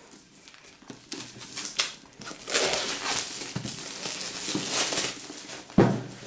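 Clear plastic shrink-wrap crinkling and rustling as it is peeled off a cardboard board-game box, loudest in the middle, with a sharp knock near the end.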